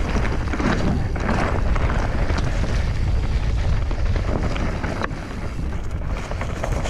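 Wind buffeting the microphone of a camera riding on a mountain bike descending a dirt trail, mixed with tyre noise and scattered small knocks and rattles from the bike.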